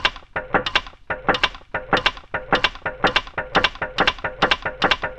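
Music starting abruptly with a regular run of sharp strummed strokes, about four a second, over a steady held note.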